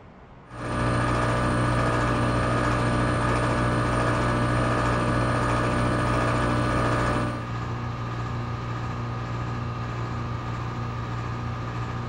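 Failing 2015 Trane XR14 air-conditioner condenser: about half a second in the compressor comes on with a sudden loud, steady electrical hum, runs for about seven seconds, then cuts out, leaving the condenser fan running more quietly. The compressor is dying; its terminals blew.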